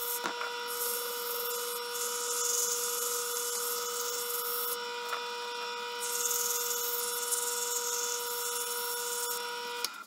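Wood lathe motor running with a steady whine while an abrasive pad rubs against the spinning Alumilite resin pen blank, the sanding hiss coming in two long stretches. The sound cuts off suddenly at the end.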